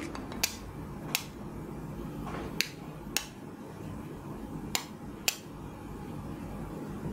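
Sharp clicks in three pairs as the bare ends of a homemade transformer power supply's red and black output wires are tapped together, over a steady low background noise.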